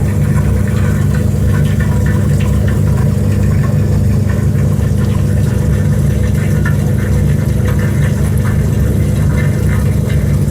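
1991 Soviet 'Volna' semi-automatic washing machine running, its motor giving a loud, steady, low hum with vibration.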